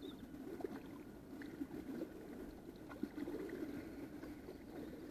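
Kayak paddle blades dipping into calm water: small splashes, drips and gurgles with each stroke, and a few light knocks.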